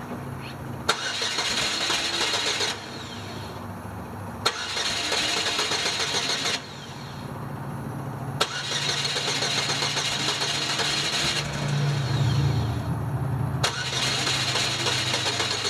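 A 2005 Chevy Cavalier being energised in four bursts of whirring, mechanical running noise, each two to three seconds long and each switched on with a sharp click, over a low steady hum. The car's fuel pump is not building pressure.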